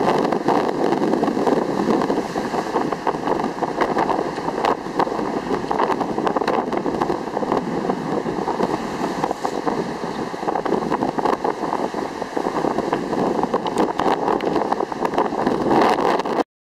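Strong wind buffeting the microphone: a steady rushing noise with crackles, which cuts off abruptly near the end.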